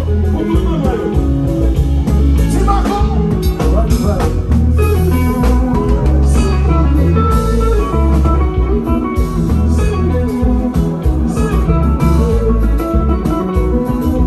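Haitian konpa band playing live, an electric guitar leading over bass guitar, drum kit and keyboard with a heavy, steady bass line.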